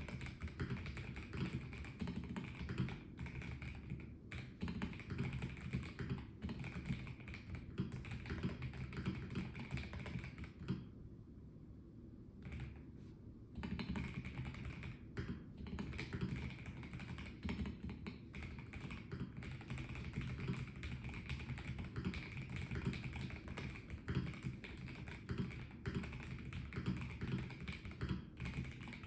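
Typing on a Melgeek Mojo84 plastic-cased mechanical keyboard: a quick, uneven run of keystroke clicks that stops for about three seconds a little before the middle, then resumes.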